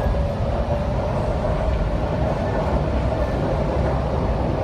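MTR C-train running between stations: a steady low rumble with a steady mid-pitched tone over it.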